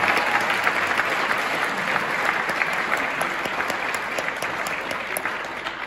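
Crowd applauding: dense clapping, loudest at the start and tapering off near the end.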